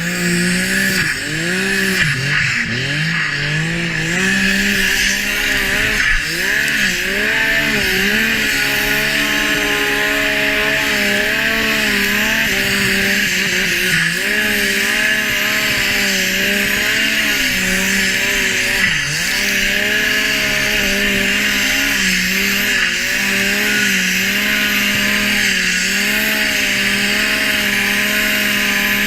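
Yamaha snowmobile engine running under a rider, revving up and down again and again as the throttle is worked, over a steady hiss.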